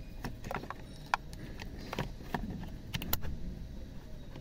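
Thin screwdriver clicking and scraping against the driver airbag's retaining clip inside the steering-wheel release hole: a scatter of small irregular ticks as the clip is pried.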